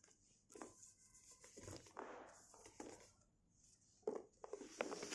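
Faint handling noises: light taps, clicks and rustles of gift items and packaging being moved by hand, with a few sharper taps near the end.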